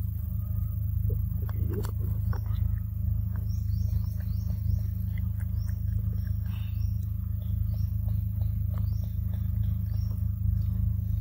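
A steady low rumble under many short, high, falling chirps from forest birds, with a few sharp clicks about two seconds in.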